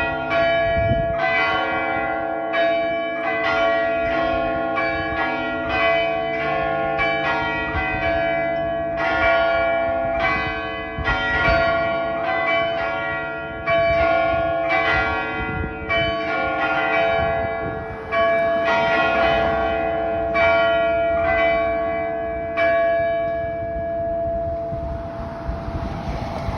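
Several church bells ringing together in a peal, their strikes coming irregularly and overlapping, each note ringing on. Near the end the strikes stop and the bells ring out and fade.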